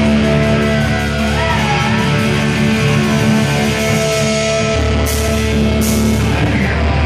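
Hardcore punk band playing live through a loud PA, with distorted electric guitars holding a sustained chord and a brief sliding guitar note about a second in. Two cymbal crashes come near the end.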